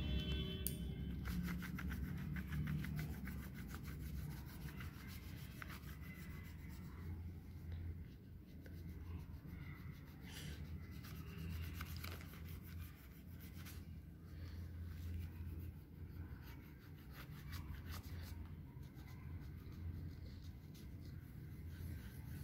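Pink crayon rubbed quickly back and forth on craft paper, colouring in a shape, with a low steady hum underneath.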